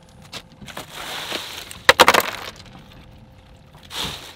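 Ice cubes being dumped into a fish cooler and clattering over the catch to slush it: a rush followed by a loud clinking, crunching burst about two seconds in, and a shorter one near the end.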